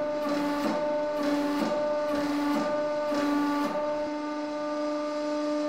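Hydraulic press pump running under heavy load, a steady machine hum whose tone swells about once a second, as the ram squeezes a club hammer head past 130 tonnes. No crack is heard: the hammer head holds.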